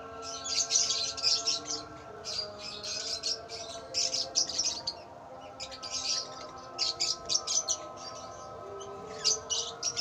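Lovebirds chirping in rapid, shrill clusters of short high-pitched calls that come again every second or so, with brief pauses between.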